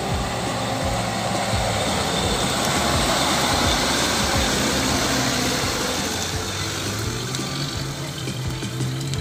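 Daihatsu Taft 4x4's engine running under load while its tyres push through wet, sticky mud, with a steady sloshing hiss of mud and water under the wheels.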